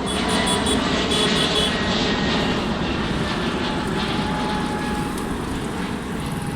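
Aeroplane engines running steadily over a wash of road traffic noise, with a few short high tones in the first second and a half.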